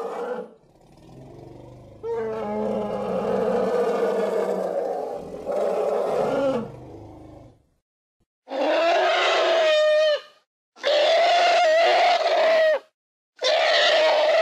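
Elephant-like vocalisations made as sound effects for the extinct straight-tusked elephant (Palaeoloxodon antiquus): a long, rough roar lasting about five seconds, then three steady-pitched, trumpet-like blasts of about two seconds each with short silences between them.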